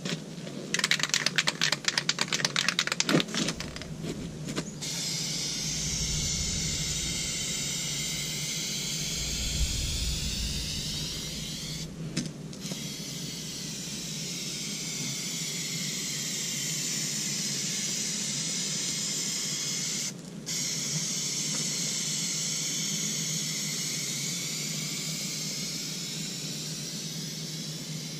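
Aerosol spray paint can shaken in quick rattling strokes for the first few seconds, its mixing ball clicking. Then it is sprayed in long steady hisses, with two short breaks about twelve and twenty seconds in, as paint goes onto the rocker panel.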